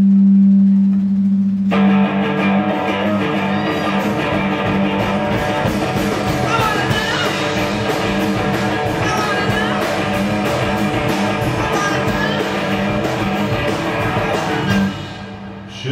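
Live rock-and-roll trio of archtop guitar, bass guitar and drum kit playing the instrumental close of a song. It opens on a held low note; the full band with drums and cymbals comes in about two seconds in and plays until it falls away near the end.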